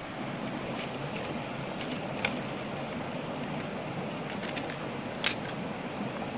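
Steady rush of flowing water, with scattered sharp clicks and snaps of dry twigs being stacked over a freshly lit tinder fire. The sharpest snap comes about five seconds in.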